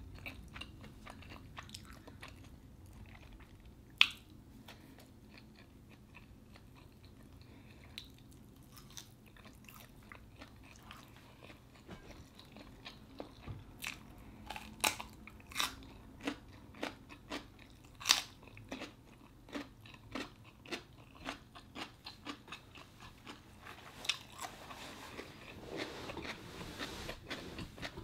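Mouth chewing, then crisp crunching bites and chews of a whole raw English cucumber from about halfway through, coming roughly one or two a second. There is one loud sharp click about four seconds in.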